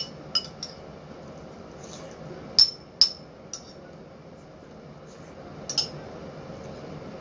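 Cutlery clinking and tapping against a ceramic rice bowl while the last of the rice is eaten: a string of short, bright clinks, loudest a little after two and a half seconds in and again at three seconds.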